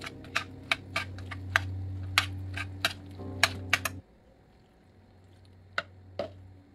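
Metal spoon clinking against a stainless steel pot while stirring cooked macaroni and cheese cubes: a quick run of sharp clinks, about three a second. Background music plays under it and stops about four seconds in, leaving two more clinks near the end.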